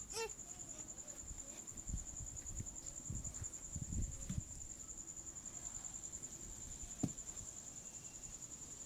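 A steady, high-pitched insect trill that goes on unbroken, with soft rustles and light bumps of cloth being handled and one sharp click near the end.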